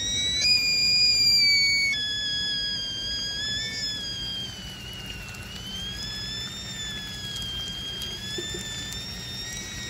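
Stovetop whistling kettle whistling at the boil: a steady high whistle with overtones that jumps up in pitch about half a second in, drops back down about two seconds in, then wavers slowly up and down.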